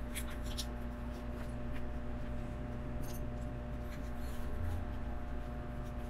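Light clicks and rustles of small LEGO plastic pieces and packaging being handled, a few at the start and some more about halfway through, over a steady low hum.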